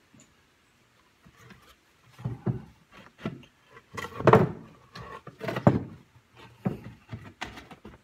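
OSB boards knocking and scraping together as the finger-jointed sides of a beehive box are pushed into place in a dry fit. A series of wooden knocks, the loudest a little over four seconds in.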